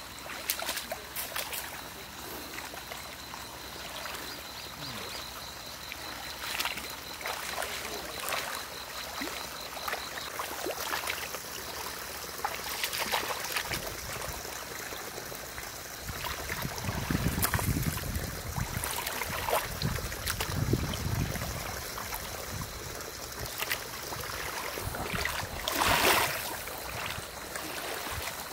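Muddy paddy water sloshing and splashing as wooden leveling rakes are pushed and dragged through a flooded rice field, puddling and smoothing the soil before transplanting. There is a louder splash near the end.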